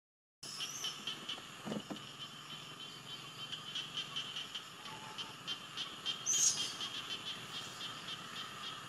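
A steady chorus of forest insects: fast, pulsing, high chirring. About six seconds in there is a brief high falling call, and there is a soft rustle of branches near two seconds.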